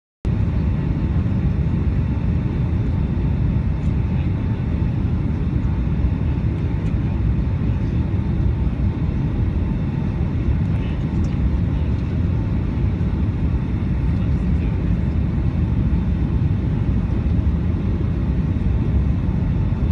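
Boeing 757-200 engine and airflow noise heard inside the cabin on approach with the flaps extended: a steady low rumble that cuts in suddenly just after the start.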